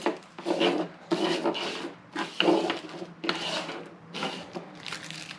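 Small plastic packets of spare drone propellers handled and slid across a plastic tabletop: a string of irregular rustling and scraping strokes.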